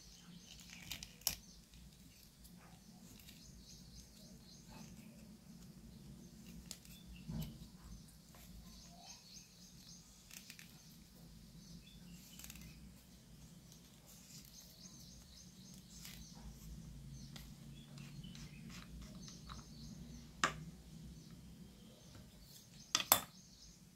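Faint plastic clicks and scrapes of a star-shaped plastic key turning the cover of a cap-type tire pressure monitoring transmitter anticlockwise to open it. A few sharper clicks are scattered through, two close together near the end.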